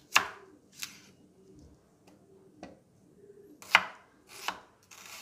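Knife cutting through a red onion and striking a bamboo cutting board: about six sharp chops at an irregular pace, the loudest near the start and again past the middle.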